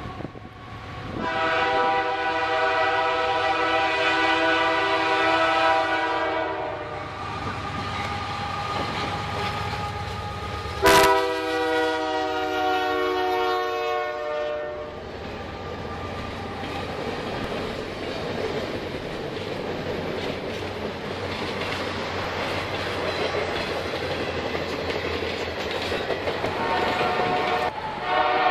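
Canadian Pacific Holiday Train's diesel locomotive sounding its air horn in long blasts as it approaches, with a sharp knock about eleven seconds in as a second strong blast begins. Then the train's cars roll past with a steady rumble and clacking of wheels over the rails, and the horn sounds again near the end.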